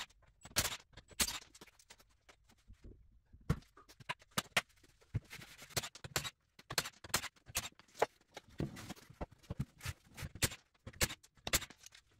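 Irregular sharp clicks and knocks of metal tools and parts being handled during wheel removal, with a short lull about three seconds in.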